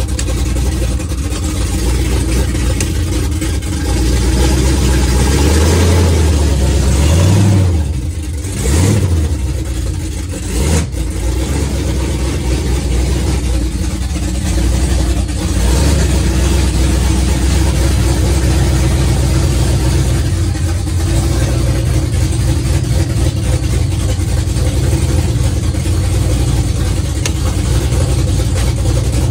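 A 427 cubic-inch LSX V8 running loud, its note climbing about six to eight seconds in, dipping sharply twice around eight and eleven seconds, then holding a steady run.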